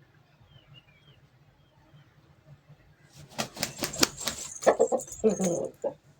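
Bird wings flapping, likely pigeons: a quick run of sharp claps starting about three seconds in and lasting about three seconds, mixed near the end with a short pitched call. Faint bird chirps come before it.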